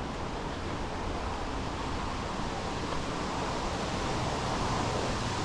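Steady rushing roar of a waterfall, growing slowly louder as it is approached.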